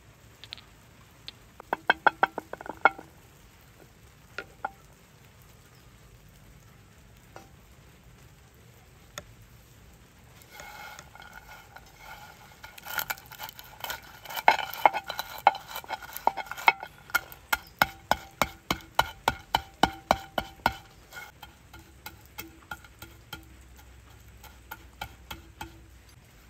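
Walnuts being crushed with a hand-held stone in a terracotta bowl: repeated sharp knocks of stone on nuts and clay, the bowl ringing after each strike, about three or four a second through the middle and thinning out near the end. About two seconds in comes a brief run of quicker taps from a pestle in a small stone mortar of ground spice.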